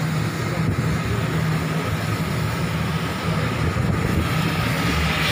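Ship's machinery humming steadily: a constant low drone with a faint, steady higher whine above it.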